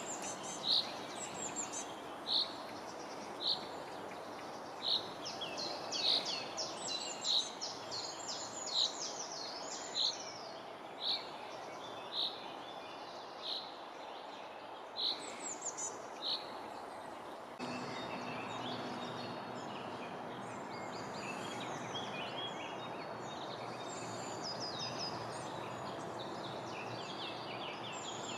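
Small songbirds singing: one repeats a single short, high note about once a second, while others add quick trilling phrases. Under them runs a steady background rush, which gets louder about two-thirds of the way through, with a low hum added.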